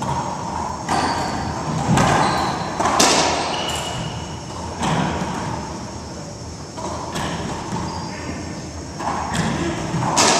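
Racquetball rally: the ball cracking off racquets and the court walls in sharp, echoing hits every second or two.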